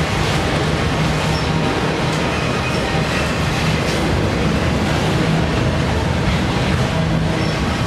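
Freight train of autorack cars rolling past close by: a steady, loud rumble and rattle of steel wheels on the rails, with a few brief, faint high squeals.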